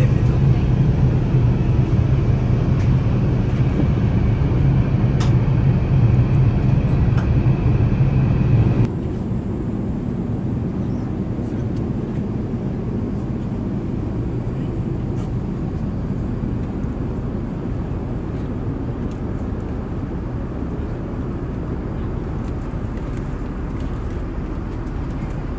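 Steady in-flight cabin noise of an Airbus A380 at cruise: a loud low drone of airflow and engines. About nine seconds in it drops abruptly to a quieter, even rumble.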